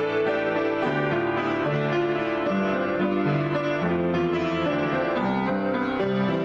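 Piano played solo in a free improvisation: held chords over a bass line that moves note by note.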